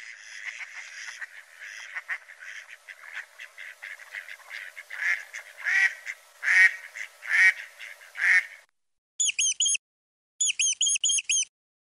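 Mallard duck quacking: a string of soft, rapid, raspy calls that builds into about five louder quacks. After a brief pause, a mouse's high-pitched squeaks follow in quick runs of four or five near the end.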